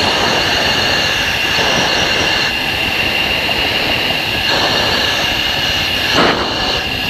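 F-16 cockpit noise in flight: a loud, steady rush of air and jet engine with a high, steady whine through it, swelling briefly about six seconds in.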